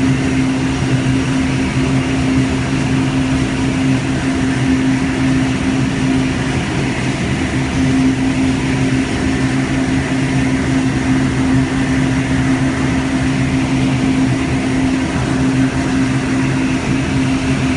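Twin jet-cook steam infusion heads injecting steam into water in a 1500-litre process vessel: a steady rushing noise with an even low hum. The steam is condensing into the water and heating it.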